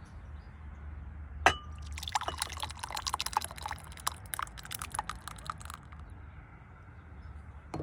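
White bean soup being poured, a run of wet splashes and plops lasting about four seconds. Just before it comes a single sharp clink with a brief ring, and another small clink comes near the end.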